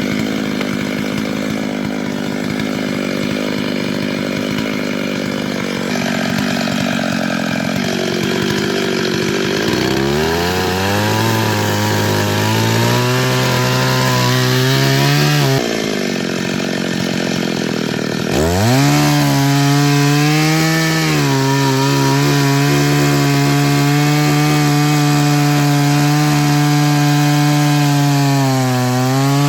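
Two-stroke chainsaw running as it cuts wood: a steady engine drone that rises in pitch about ten seconds in, breaks off suddenly around fifteen seconds, then revs up again a few seconds later and holds a high, steady pitch.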